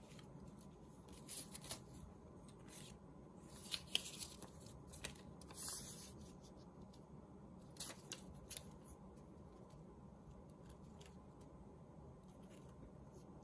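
Faint paper handling: short, scattered rustles and scrapes as paper strips are picked up, laid down and brushed with glue, mostly in the first two-thirds, then only faint room hiss.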